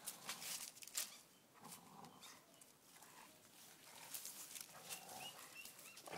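Two dogs growling softly as they tug on a toy between them, with faint scuffling and a few short, high rising squeaks near the end.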